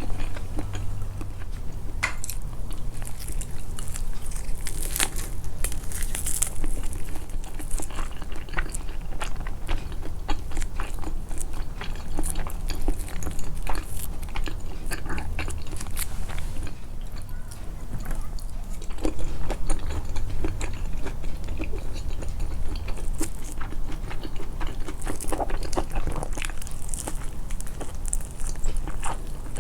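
Close-miked chewing and biting: a person eating, mouth sounds emphasised, with many small irregular clicks and crunches.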